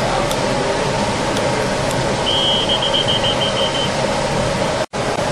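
Steady rushing outdoor background noise, with a referee's pea whistle trilling for about a second and a half in the middle, fading as it goes. The sound cuts out for an instant near the end.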